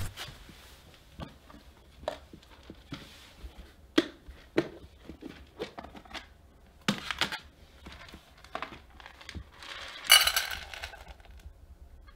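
Plastic bag crinkling and dry pet food rattling into a stainless steel bowl, with scattered clicks and knocks of handling. A louder crinkle of plastic comes about ten seconds in.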